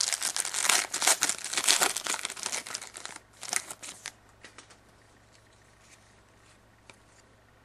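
A trading-card pack's wrapper crinkling and tearing as it is opened, for about four seconds. This is followed by sparse, faint clicks as the cards are handled.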